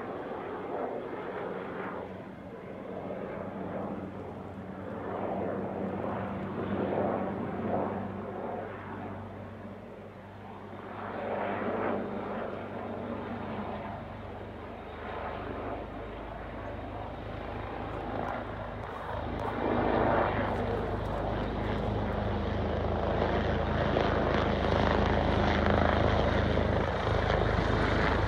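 Fire department helicopter approaching, its rotor and engine noise growing steadily louder over the second half as it comes almost overhead.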